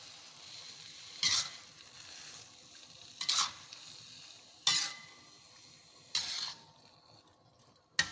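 Sliced mushrooms sizzling as they stir-fry in a pan, with a spatula scraping through them in four strokes about every one and a half seconds, and a sharp tap against the pan right at the end.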